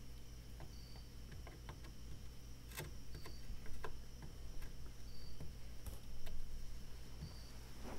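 Faint, irregular ticks and small crackles as an electric soldering iron's tip works along a crack in a plastic motorcycle fairing, melting the two sides together, over a steady low hum.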